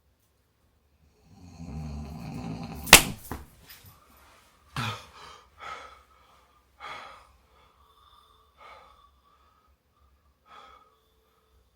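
A sleeping man's snore, then a single sharp crack about three seconds in, followed by a run of short, fading, wheezy breaths, some with a thin whistle.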